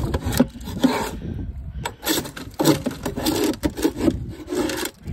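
Hand scraper scraping flaky old paint off the edge of a small boat, in short, uneven strokes; the paint is coming off easily.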